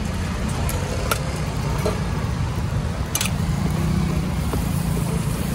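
Steady low rumble of road traffic, with a few sharp clicks of a metal spatula against the dosa griddle about a second in and about three seconds in.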